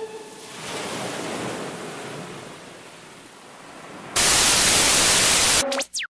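Soft surf-like hiss swelling and fading, then a sudden loud burst of even static-like white noise for about a second and a half, ending in a quick falling sweep before the sound cuts off to silence.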